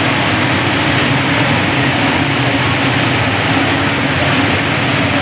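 Loud, steady street noise: a continuous rush with a low hum underneath, like passing traffic or engines, with no distinct events.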